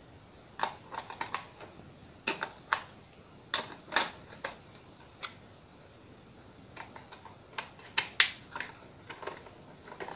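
Irregular plastic clicks and clacks as AA batteries are pressed into a toy RC car's plastic battery compartment and the car's body is handled.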